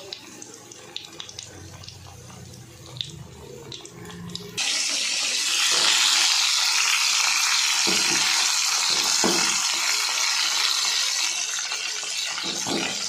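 Batter-coated drumstick pieces deep-frying in hot oil, sizzling with scattered pops. About four and a half seconds in, the sizzle suddenly gets much louder and stays a steady hiss.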